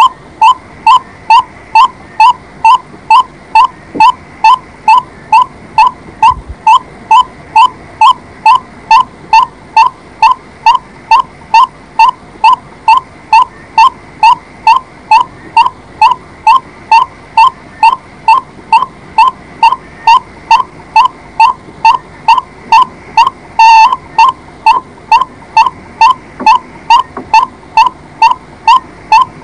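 White-breasted waterhen calling: one loud, short note repeated about twice a second in an unbroken, even series. One note about three-quarters of the way through comes out louder and distorted.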